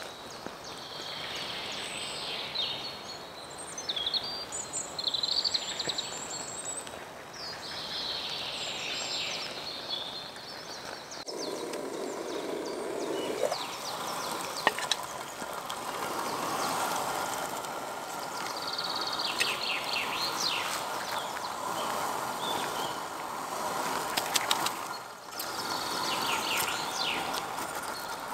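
Songbirds singing in a forest. After a cut about eleven seconds in, a steady hiss joins them from water heating toward the boil in a canteen cup over a small stove flame, with a few light metal clinks as the lid is lifted.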